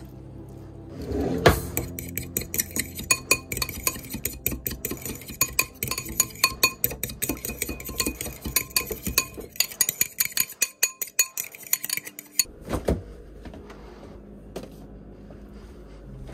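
Metal spoon stirring a creamy sauce in a bowl, with quick, irregular clinks of the spoon against the bowl that run for about eleven seconds. A knock comes near the start of the stirring and another just after it stops.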